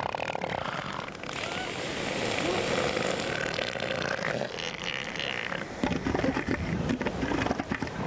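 Southern elephant seals calling: a young seal's long, harsh, hoarse cry, then a run of rapid pulsing in the last couple of seconds.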